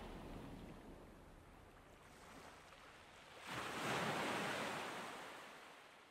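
Quiet ocean surf sound effect: a soft wash that fades, then a single wave rushes in about three and a half seconds in and slowly dies away.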